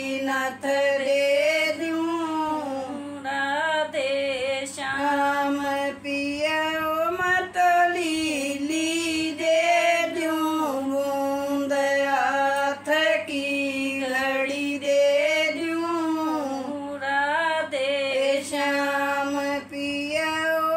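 An older woman singing a folk song solo and unaccompanied, in long held notes that waver and bend in pitch, with brief pauses for breath between lines.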